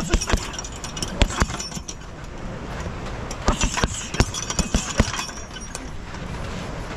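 Punches thudding into a hanging heavy bag in two quick flurries, about a second in and again after three seconds, with the bag's suspension chain clinking and jangling at the hits.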